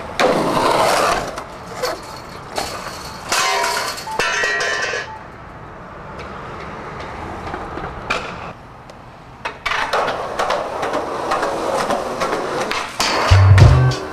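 Skateboard wheels rolling on concrete, with the board popping and clacking down on landings several times. A hip-hop beat with heavy bass thuds comes in near the end.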